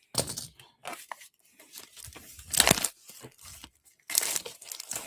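Plastic wrapping on a pack of card top loaders being torn open and crinkled, in several short bursts, loudest about two and a half seconds in.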